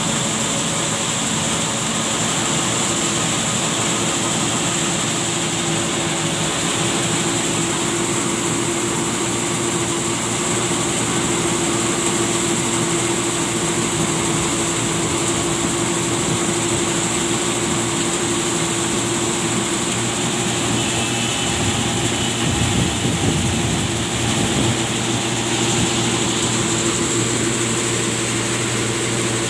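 Engine-driven machine running steadily, with a constant whine over the engine noise, growing a little louder and lower for a few seconds about two-thirds of the way through.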